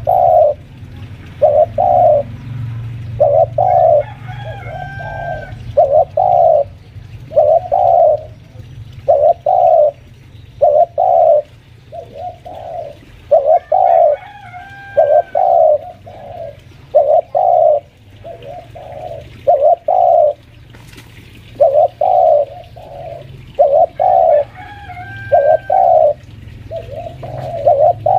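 Spotted dove (tekukur) cooing repeatedly, about one coo a second, often in runs of two or three. This is the insistent calling of a seasoned decoy dove pressing a rival.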